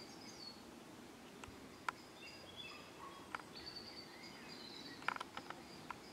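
Faint evening woodland ambience: thin, high birdsong over a low steady rumble, broken by a few short, sharp clicks, with a quick cluster of them about five seconds in.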